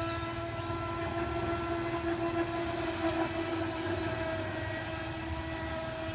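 A small fast boat's motor running steadily: a high whine with overtones, wavering slightly about three seconds in.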